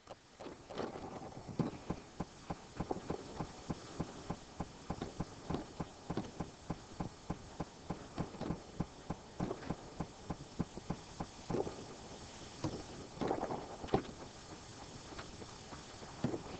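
Light, irregular clicks and taps of computer keys and a mouse, roughly two a second, as a calculator command is typed and entered.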